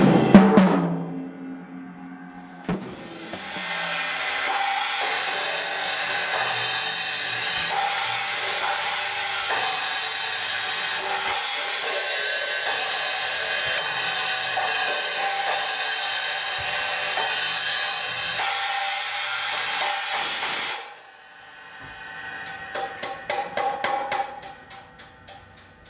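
A loud thump at the very start, then cymbals struck and rolled in a dense, sustained shimmering wash that cuts off suddenly about 21 seconds in. Near the end, lighter, evenly spaced percussion strikes follow.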